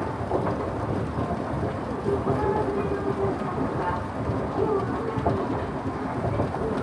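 Escalator in an old department store running, its electric drive machinery giving a steady, loud low rumble. Faint voices of passers-by come through now and then.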